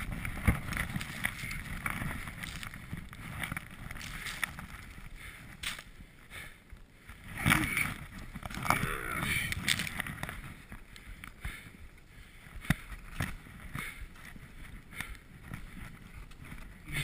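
Skis running through deep powder snow: a rough, uneven swishing rush with snow and wind buffeting the camera microphone, swelling louder about halfway through.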